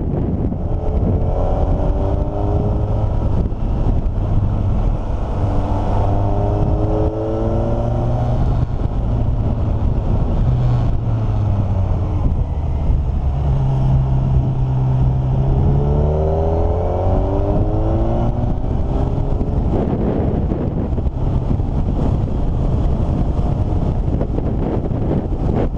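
A vehicle's engine running continuously under load, its pitch climbing several times as it accelerates, over a steady low drone and rushing noise.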